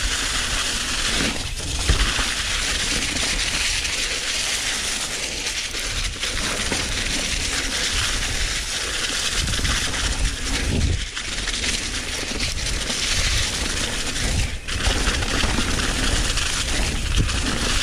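Mountain bike tyres rolling fast over dry fallen leaves and dirt on a trail: a steady rough crunching rush with a low rumble from the bike over the ground. It briefly dips three times.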